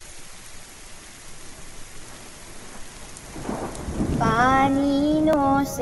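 Rain falling as a steady hiss, with a low roll of thunder about three and a half seconds in. Just after the thunder, a held musical note begins.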